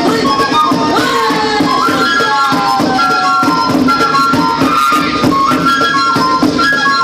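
Andean folk music for a costumed group dance: a high melody of held notes and short slides over a steady, even beat.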